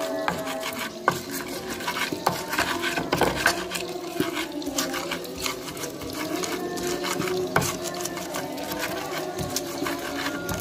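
Stone pestle (ulekan) grinding chillies and shallots in a clay mortar (cobek) for sambal terasi: repeated scraping and knocking strokes of stone on clay. Some steady tones sound in the background.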